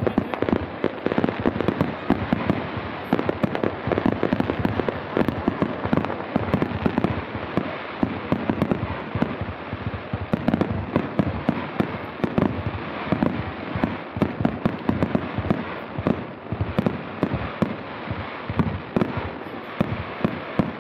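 Aerial fireworks display: shells bursting in a dense, continuous barrage of bangs, many overlapping in quick succession without a pause.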